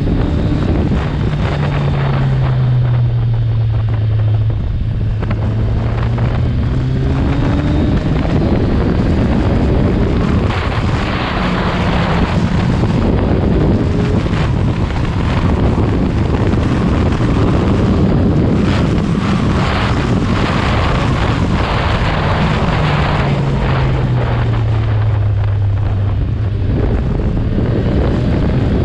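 Kawasaki Ninja 1000's inline-four engine and exhaust while riding, with the engine note dropping as the bike slows in the first few seconds, climbing again around ten seconds in, and dropping once more near the end. Wind buffets the microphone throughout.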